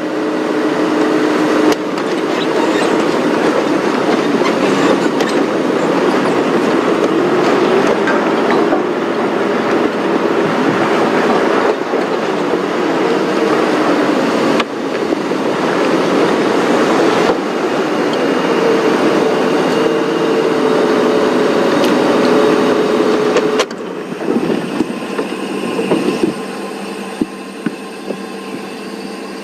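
Safari game-drive vehicle driving over rough ground, engine running under loud rattling and rumbling with wavering whining tones. It eases off and becomes quieter about 24 seconds in.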